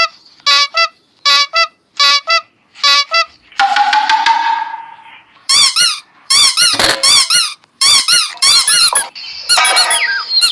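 Edited-in cartoon sound effects: five short squeaky notes in quick succession, then a falling tone, then a run of squeaky, wavering high-pitched cries.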